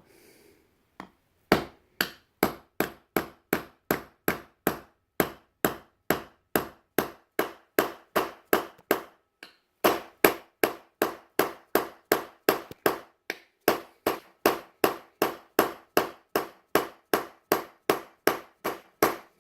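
Hammer blows driving a metal wedge into the top of a hammer handle: a steady run of sharp metallic strikes, about two to three a second, with a pause of about a second partway through.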